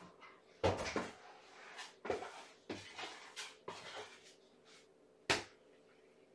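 A series of irregular knocks and rustling clatters, about nine in six seconds, with a sharp knock about five seconds in, over a faint steady hum.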